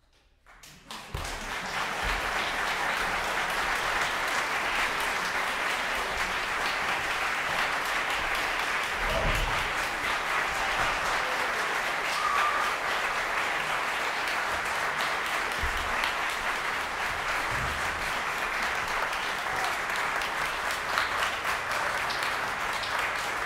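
Audience applauding. The applause breaks out of silence about a second in and then holds steady and dense.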